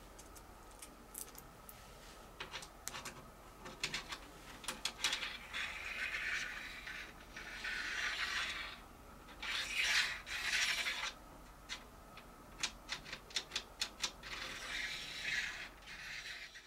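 Small metal clicks and scraping as a steel washer is handled onto an M6 T-bolt and the bolt is slid in a T-slot track. Scattered ticks, with longer scraping runs in the middle and again near the end.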